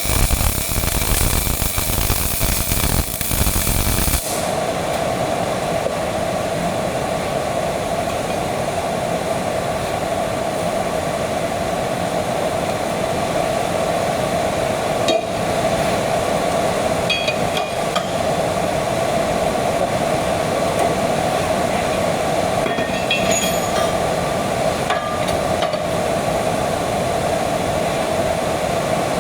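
MIG welding on steel pipe fittings with a Miller-Matic 251 at about 21 volts: a loud, dense arc crackle for about four seconds, then the sound changes to a steadier hiss with a hum.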